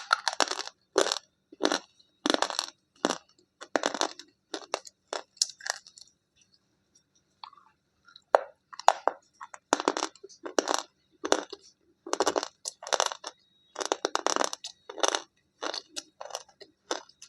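A piece of white slate bar being bitten and chewed: a run of dry, brittle crunches in quick, irregular succession, with a short lull about halfway through.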